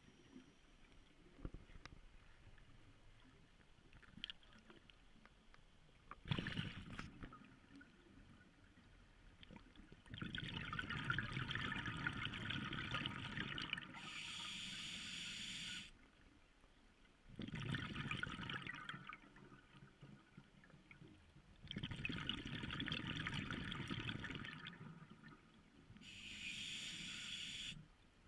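Scuba diver breathing through a regulator underwater: several breaths, each a few seconds long, alternating hissing inhalations with bubbly exhalations, after a mostly quiet first few seconds.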